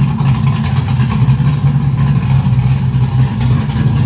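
The 1966 Ford Mustang restomod's 347 stroker small-block V8 running steadily at low revs, a throaty exhaust note from its big Comp cam.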